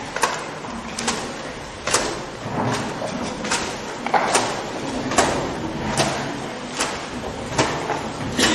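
Sharp percussive knocks in a steady rhythm, about one every 0.8 seconds, over a low background murmur.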